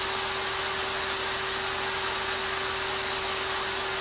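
Ridgid cordless drill running at a constant speed with a steady whine, spinning a brushless RC helicopter motor in its chuck so that the motor acts as a generator for a phase-by-phase AC voltage check.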